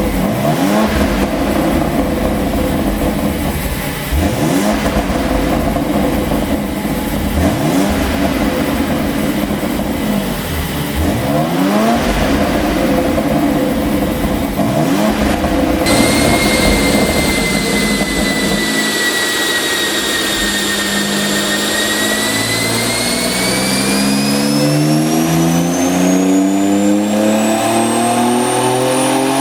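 BMW X4 M's twin-turbo inline-six running through an exhaust tuned for pops and crackles: revs blipped over and over, about every three to four seconds. About halfway through a high whine sets in, and the engine then climbs steadily in revs with the whine rising alongside.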